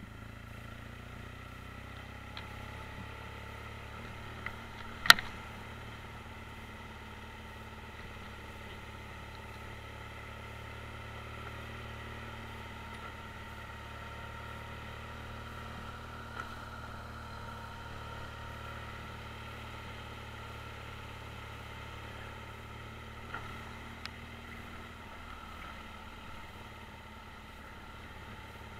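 BMW R1200 GS boxer-twin engine running steadily while riding along a dirt track. A single sharp, loud knock comes about five seconds in, and a few lighter ticks follow later.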